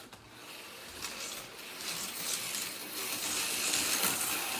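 TYCO HO slot-car turbo trains running laps on the track: the small electric motors whir and the wheels and pickups rattle along the rails, getting louder from about a second in.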